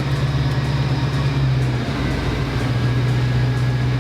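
Ford F250 Super Duty pickup's engine idling with a steady low drone; the deepest part of the drone shifts lower about two seconds in.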